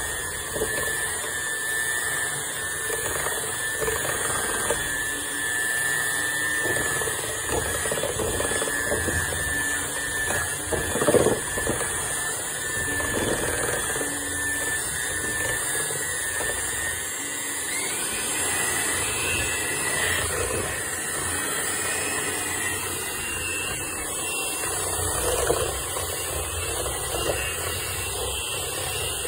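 Electric hand mixer running steadily with a thin whine, its beaters whirring through thick chocolate brownie batter to beat in the eggs. There is a brief louder knock about eleven seconds in.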